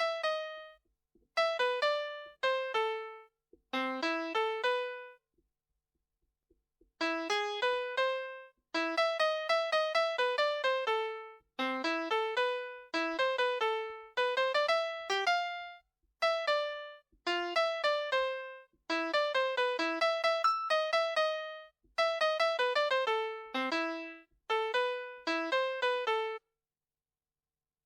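VTech Baby's Pop-it Tablet toy playing a children's melody through its small speaker in electronic piano-like tones. Short notes fade quickly and come in phrases with short pauses, ending about a second before the close.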